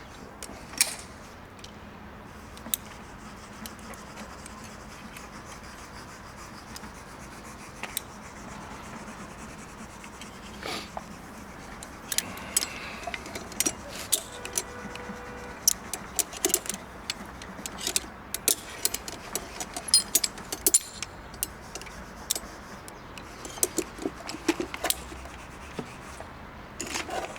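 Irregular metallic clinks, knocks and rubbing from handling a bucket on a rope with its carabiner, few at first and coming thick and fast from about halfway through.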